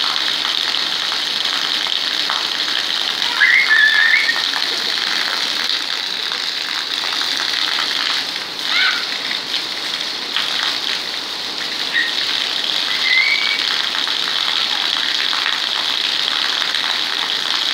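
Heavy rain falling on a concrete rooftop, a steady hiss, with a stream of water from a roof drain spout splashing onto the floor.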